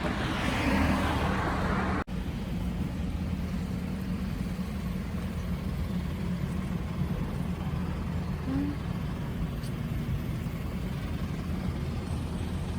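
Street traffic: a vehicle passing over the first two seconds, then a steady low engine and road hum.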